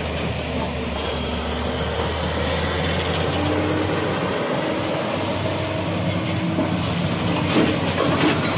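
JCB tracked excavator's diesel engine running steadily under load, with a steady hydraulic whine as its crusher bucket works stone, and crushed stone rattling out of the bucket near the end.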